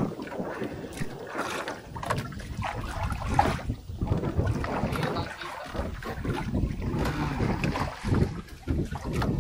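Wind buffeting the microphone aboard a small fishing boat at sea, an uneven low rumble with scattered short knocks.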